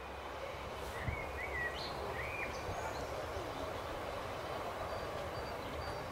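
Distant diesel train approaching on the line, a steady low rumble and hum. Birds chirp a few times about one to two and a half seconds in.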